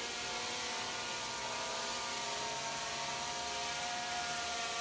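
MJX Bugs 2W quadcopter's brushless motors and propellers whining steadily as it descends in its automatic landing sequence, several steady tones over a hiss that grow a little stronger over the second half as it comes lower.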